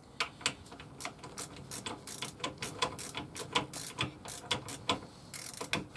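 Irregular metallic clicks and clinks, a few a second, with brief scrapes about two and five and a half seconds in, as a rear brake caliper is slid back onto its greased carrier and worked into place by hand.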